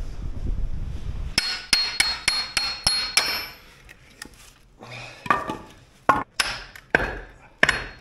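Wind buffeting the microphone, then, about a second and a half in, a quick run of sharp blows with a metallic ring, about three a second, followed by a few slower knocks: a blade being hammered down through a log to split firewood into kindling.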